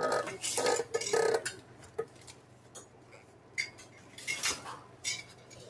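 Metal hand tools clinking and clattering as they are picked up and set down, in several short bursts with a light metallic ring.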